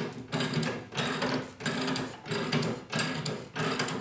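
Motorcycle lift being lowered in short, even mechanical strokes, about two a second, each a clatter over a low hum.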